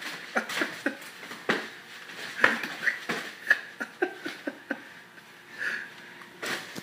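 Padded boxing gloves smacking in quick flurries of punches during sparring, about a dozen sharp hits, with heavy breathing between the exchanges.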